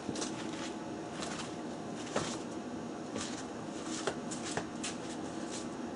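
Hands handling cut felt pieces and materials on a workbench: soft rustling with a few small clicks and taps.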